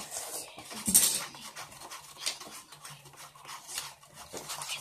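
A spoon stirring a thick mix of body wash and hand soap in a disposable cup, making irregular scrapes and clicks against the cup; the sharpest comes about a second in.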